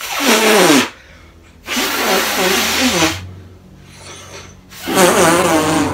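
A person blowing three loud buzzing blasts through a fist held at the mouth, the pitch sliding down in the first one.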